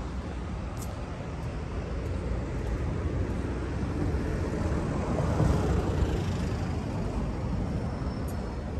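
City road traffic running steadily, with one vehicle passing close that swells louder around the middle and fades again.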